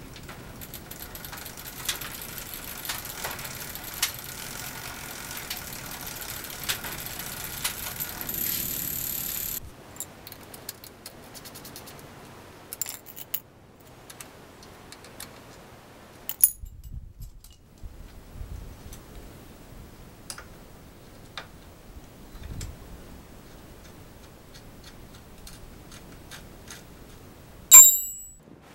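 Light metallic clicks and clinks of a wrench and small nuts and washers being worked onto the rear axle and hub brake of an electric-assist bicycle, scattered through the clip, with one sharp metallic clatter near the end. A steady high hiss runs underneath and stops about a third of the way in.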